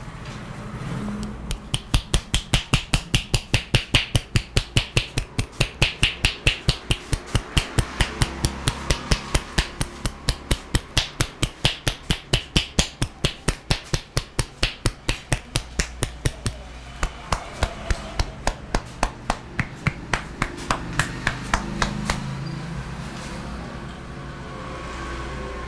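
A barber's hands beating out rapid massage tapping (tapotement) on the body, sharp even strikes at about four a second. They start about a second and a half in and stop a few seconds before the end.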